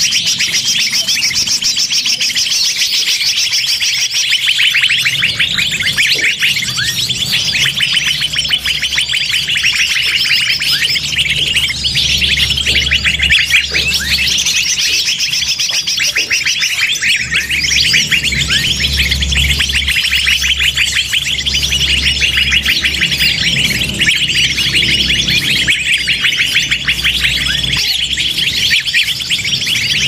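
Bird-lure recording: a loud, continuous commotion of many small birds' rapid high chirps and calls overlapping, with a low hum underneath from a few seconds in.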